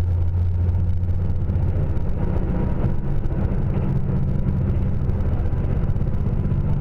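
Diesel express train in motion, heard from inside the passenger cabin: a steady low engine drone mixed with wheel-and-rail rolling noise, the drone easing slightly about two seconds in.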